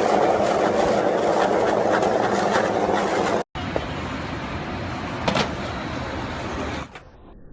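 Skateboard wheels rolling on rough pavement, a steady rumble with small clicks. It breaks off a little over three seconds in, then rolls on more quietly, with one sharp board clack a little after five seconds.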